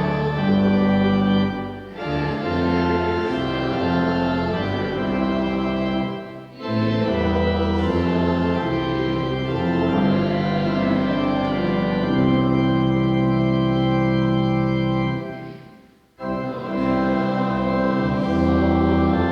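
Church organ playing slow music in held chords, phrase by phrase, with short breaks between phrases: twice in the first seven seconds and one near-silent pause about three seconds before the end.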